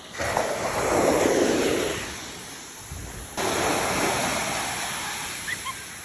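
Ocean surf breaking on a beach: two waves, one right at the start and one about three seconds in, each rushing in suddenly and washing out over a couple of seconds.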